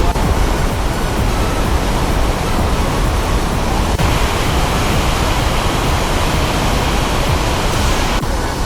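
Loud, steady rush of a powerful whitewater river in heavy flow, the Merced, a dense wash of noise heaviest in the lows. It changes abruptly about four seconds in and again near the end.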